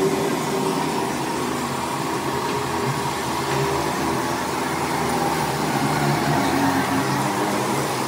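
Steady whirring of an air blower feeding a clay aluminium-melting furnace, with a low wavering hum underneath.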